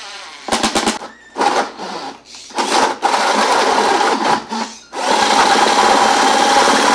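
Porter-Cable cordless drill running in a few short bursts, then in two long steady runs of about two seconds each as a Forstner bit bores out the hose inlet hole through a plywood drill guide into the Thien baffle's top.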